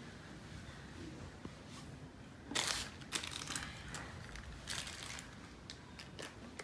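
Plastic bottle and packaging being handled: a few crinkling, rustling bursts, the loudest about two and a half seconds in, then a few light clicks near the end.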